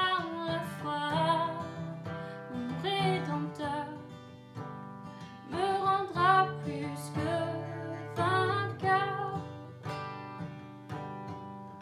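A woman singing to her own strummed acoustic guitar; about ten seconds in the voice stops and the guitar plays on alone.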